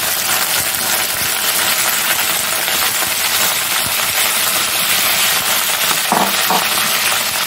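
Sliced okra frying in hot oil with spluttered mustard seeds in an aluminium kadhai: a loud, steady sizzle full of fine crackling.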